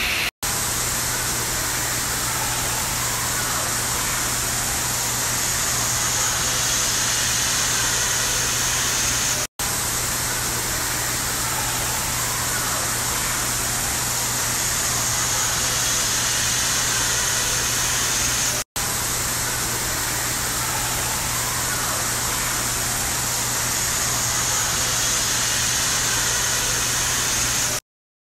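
A steady, even rushing hiss with a low hum beneath it, broken by three brief dropouts, at about half a second, nine and a half seconds and nineteen seconds in, and cutting off just before the end.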